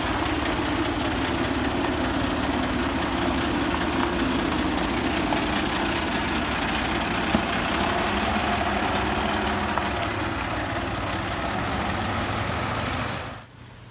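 Volvo F10 truck's six-cylinder diesel engine idling steadily, heard close up. The sound drops away sharply about half a second before the end.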